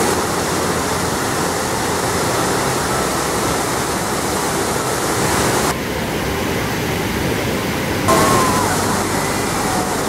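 Waterfall and river rapids rushing in a loud, steady roar of falling and churning water. The sound changes abruptly about six seconds in, turning duller, and changes back about two seconds later.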